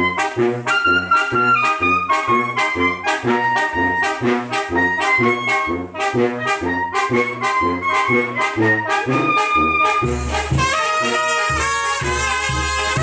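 A brass band playing live: a sousaphone keeps an alternating bass beat under bass drum and snare while trumpets and saxophones carry the melody. About ten seconds in, the sound thickens into a fuller passage with a steady bass.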